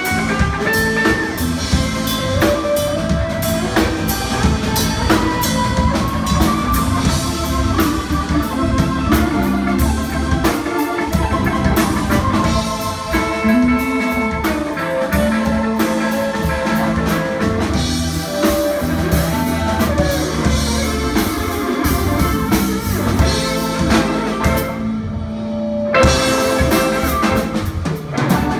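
Live blues band playing an instrumental passage: an electric guitar lead with held, bending notes over drum kit and bass guitar. Near the end the cymbals drop out for about a second before the full band comes back in.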